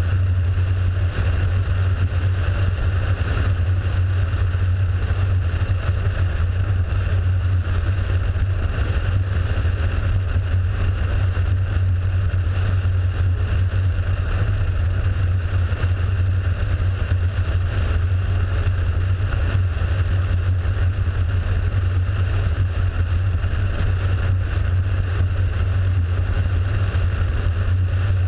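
Light propeller aircraft's engine and propeller in flight, a steady, unchanging drone with a strong deep hum.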